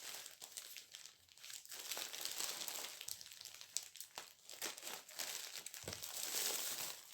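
Parcel packaging crinkling and rustling in the hands as it is opened to take out skeins of yarn, with irregular crackles throughout.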